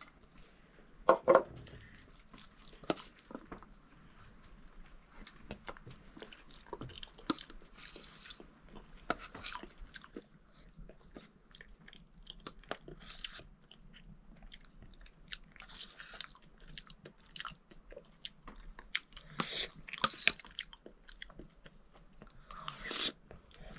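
A person eating rice with a steel spoon from a steel plate: the spoon clinks and scrapes on the plate, with chewing between. About a second in, a steel bowl clanks loudly against the plate as curry is tipped out of it.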